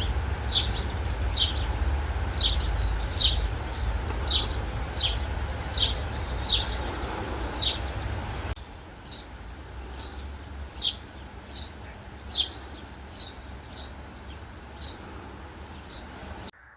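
A bird repeating a short, sharp, falling call note at an even pace, a bit more than once a second, with a few longer gliding notes near the end. A low rumble sits under the first half and drops away abruptly about halfway through.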